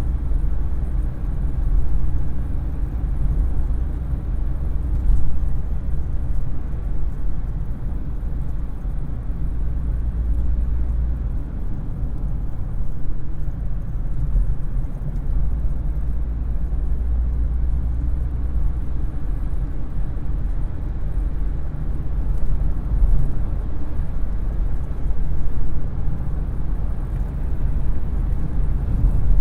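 Car engine running steadily, heard from inside the cabin as a continuous low rumble.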